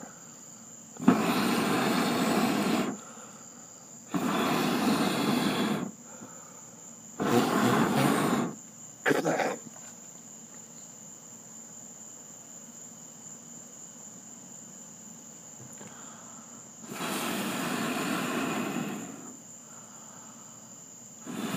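A person blowing hard onto burning charcoal briquettes to fan the flames: four long blows and one short one in the first ten seconds, then a last long blow after a pause. Crickets chirp steadily and faintly behind.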